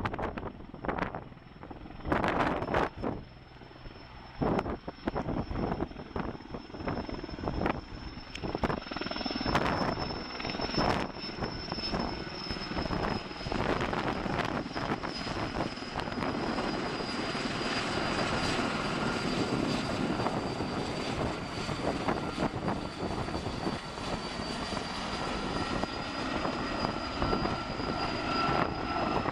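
Sikorsky S-64 Skycrane twin-turbine helicopter flying past: the chop of its rotor blades over a steady high turbine whine, with a second, lower whine joining about two thirds of the way through.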